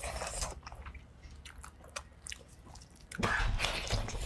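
Pork trotter being pulled apart by hand, then bitten into and chewed, with the loudest biting and chewing in the last second or so.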